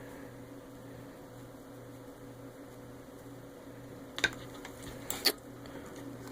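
Steady low electrical hum in a small room, with a few small sharp clicks about four and five seconds in.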